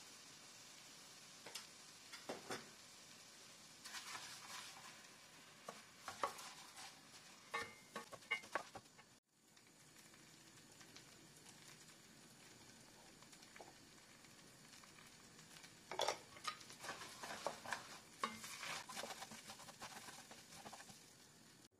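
Wooden spoon stirring dry basmati rice in a stainless steel pan, the grains rustling and scraping against the metal in bursts, over a faint steady sizzle. A quieter stretch without stirring falls in the middle.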